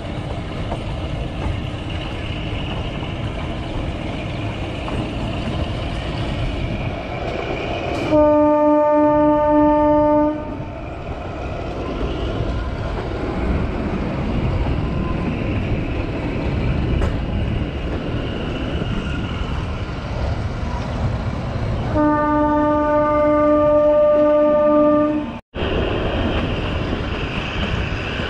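Narrow-gauge Kalka–Shimla toy train running with a steady rumble, its horn sounding twice: a blast of about two seconds some eight seconds in and a longer one of about three seconds near the end, which breaks off abruptly.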